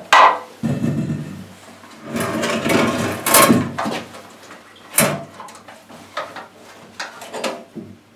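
Knocks, scraping and rattling from an engine being turned over by hand to work the flushing water through it, with a sharp knock right at the start and more knocks about five and seven seconds in.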